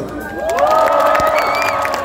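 Concert crowd cheering and shouting in many high voices, swelling about half a second in, with scattered clapping.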